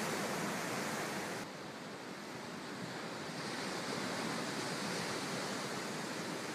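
Heavy surf breaking over rocks: a continuous wash of crashing waves and spray. About a second and a half in, the sound changes abruptly, duller and a little quieter, then slowly builds again.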